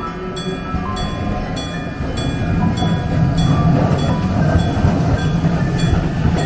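Level-crossing warning bell, a real mechanical bell rather than an electronic chime, struck steadily about every 0.6 seconds and ringing on between strikes. Under it a Randen tram rumbles through the crossing, growing louder from about a second in until it is the loudest sound.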